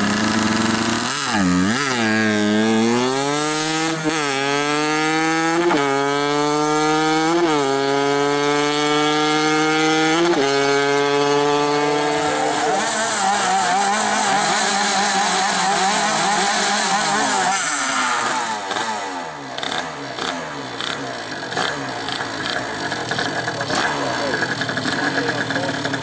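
Drag-racing moped engine accelerating hard, its pitch climbing through each gear and dropping sharply at several gear changes over the first twelve seconds. After that, several moped engines idle and rev unevenly together.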